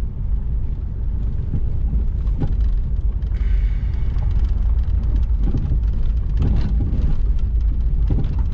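Steady low rumble of a car driving slowly over a rough gravel street, heard from inside the cabin.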